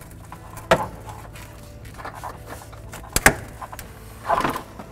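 A few sharp clicks and knocks of hand tools and a hose clamp being handled, the loudest about three seconds in, then a short scraping rustle near the end.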